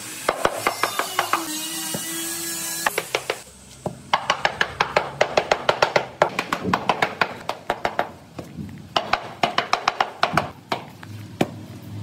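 Rubber mallet tapping ceramic floor tiles down into a fresh mortar bed, in quick runs of about six knocks a second with short pauses between runs. A brief hissing scrape comes between the runs about two seconds in.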